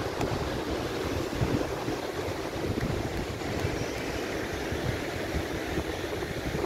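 Wind buffeting the microphone in irregular low gusts, over a steady rush of surf breaking on a rocky shore.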